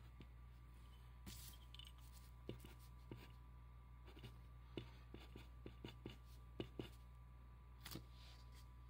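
Writing on paper: irregular taps and short scratching strokes of a writing implement's tip, with a couple of longer scratches about a second in and near the end.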